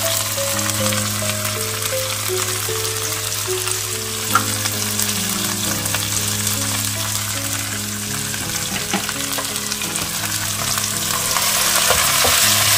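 Chopped onions, tomatoes, green chillies, cashews and herbs sizzling in a little hot oil in a nonstick pot, a steady frying hiss. It grows louder near the end as a spatula stirs the mix.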